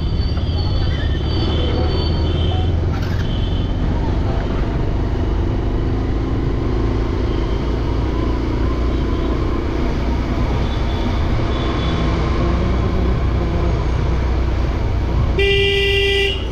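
Motorcycle riding slowly along a town street: a steady low rumble of engine and wind on the bike-mounted microphone. A vehicle horn honks once, briefly and loudly, about fifteen seconds in, with fainter high horn toots in the first couple of seconds.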